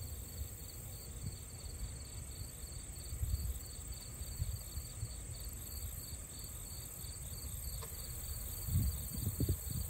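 Field insects, crickets among them, chirping in a steady, evenly pulsed chorus, with a continuous high trill above it. Under it runs a low rumble that grows gusty near the end.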